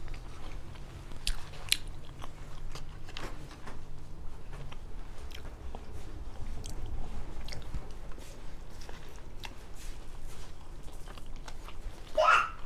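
Close-miked chewing and biting of Japanese food, with many small wet clicks and crunches. A brief, louder rising squeak comes near the end.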